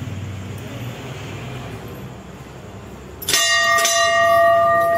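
A hanging brass temple bell struck twice, about half a second apart, a little over three seconds in, then ringing on in several long, steady tones. Before the strikes, a low steady rumble.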